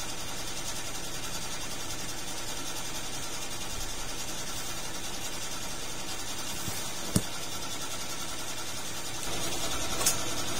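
Steady hum of a small electric motor running, with a sharp click about seven seconds in and another near the end.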